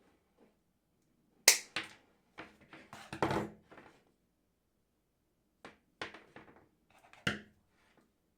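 Electrician's pliers snipping through solid-core copper installation cable (3 × 1.5 mm²): several sharp snaps and clicks of the jaws and handles, the loudest about a second and a half in, with lighter clicks and handling rustle after.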